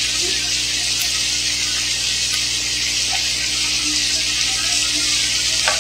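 Boiled meat and browned onion sauce sizzling steadily in a frying pan on a gas burner as the sauce cooks down and thickens.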